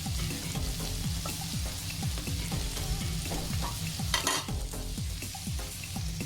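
Sausage, onion, capsicum, ginger and chilies sizzling in a frying pan while a spatula stirs them, scraping repeatedly against the pan, with one louder scrape a little after four seconds in.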